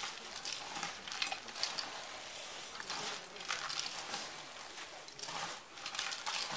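Singju, a shredded-vegetable salad, being tossed by hand in a steel bowl: the crinkle of plastic gloves and the moist rustle of shredded cabbage and greens, in irregular strokes.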